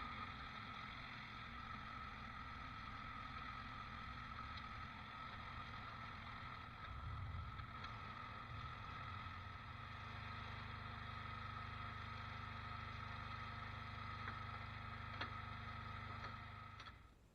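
Engine-driven machinery running steadily with a high whine over a low rumble; the rumble gets heavier about ten seconds in, and the sound fades out near the end.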